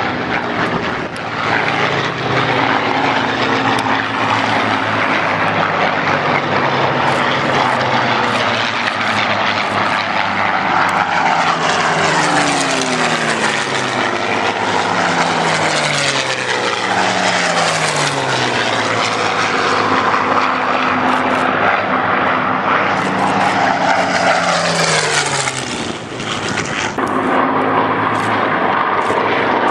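Several Supermarine Spitfires' V12 piston engines running as the fighters fly past one after another. Each engine note drops in pitch as it passes, and the sound dips briefly near the end.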